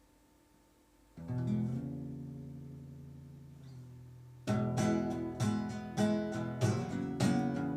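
Instrumental song intro on acoustic guitar. A single strummed chord about a second in is left to ring and fade, then steady rhythmic strumming starts about halfway through.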